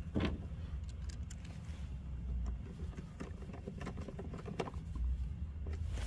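Scattered light clicks and taps of screws being reinstalled by hand in the mount of a plastic Milwaukee Packout rolling-toolbox handle, over a steady low rumble.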